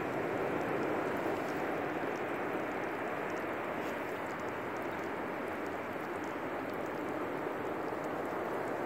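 Ocean surf washing onto the shore, heard as a steady, even hiss of noise with no separate wave crashes standing out.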